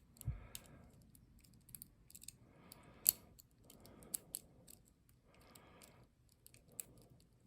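Faint, irregular small clicks of a lock pick working the pins of a Zi Ikon padlock's core under light tension, with the loudest click about three seconds in.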